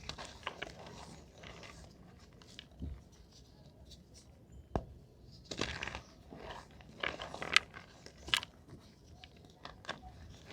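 Reformed gym chalk crunching and crumbling in a series of dry crunches, with the two sharpest cracks about three-quarters of the way through.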